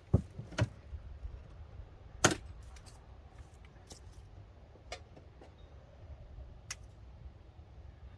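A few scattered sharp knocks and cracks from tearing out old wooden wall boards. The loudest comes a little over two seconds in, over a steady low background rumble.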